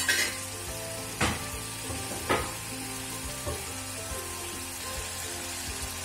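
Paneer cubes frying in hot oil in a kadai, a steady sizzle, with two short knocks of a spatula against the pan about one and two seconds in.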